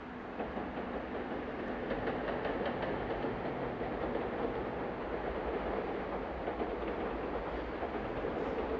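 JR Freight EF64 1000-series electric locomotive hauling a freight train of flat wagons, its wheels rumbling and clicking along the rails. It grows louder over the first couple of seconds as the train approaches, then holds steady.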